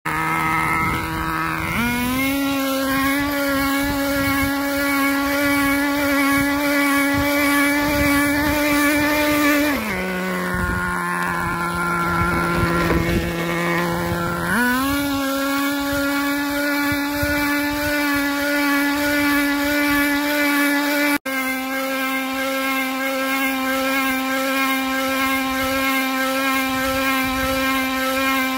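Small nitro glow engine of an RC drift car running at high, steady revs. The revs drop to a lower steady pitch for about four seconds near the middle, then rise back up. The sound cuts out for a split second about two-thirds of the way in.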